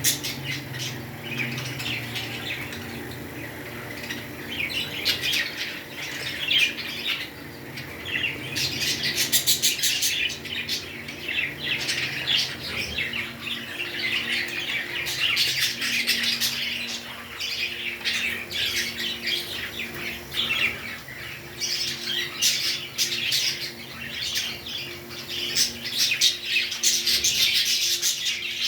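Pet parrots chattering and squawking without pause, a dense mix of shrill chirps and squawks.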